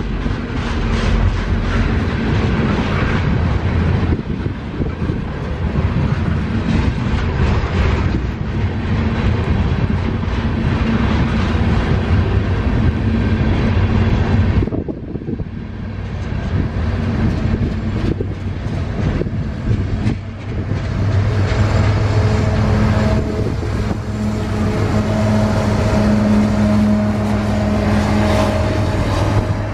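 Railroad tank cars rolling past on steel wheels, a steady rumble with clickety-clack over the rail joints. In the latter part, the steady hum of a CN GE ET44AC diesel-electric locomotive's engine joins the rolling wheels as it approaches.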